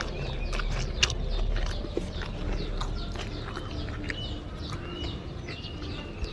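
Close-up eating sounds of fried rice eaten by hand: chewing with repeated small wet clicks and smacks. Short high chirps of birds in the background.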